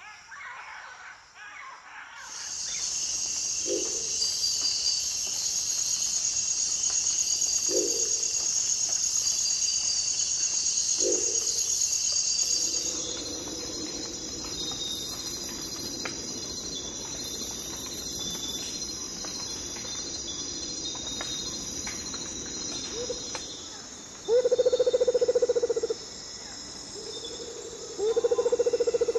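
Steady high-pitched chorus of insects, crickets or cicadas, as a dense buzz. Near the end come two loud blasts with a clear pitch, each about a second or two long and a few seconds apart.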